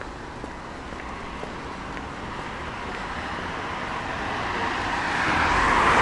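A car approaching along the street, its tyre and engine noise growing steadily louder and peaking near the end.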